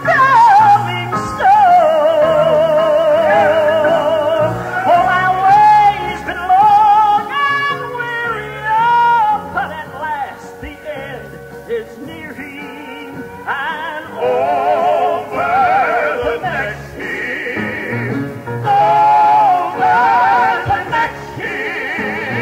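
Live southern gospel song: a singer holds long notes with heavy vibrato over the band's accompaniment.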